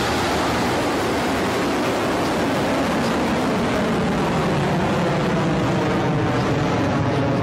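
Rocket Lab Electron rocket lifting off, its nine kerosene/liquid-oxygen Rutherford first-stage engines running at full thrust: a loud, steady, dense rocket roar.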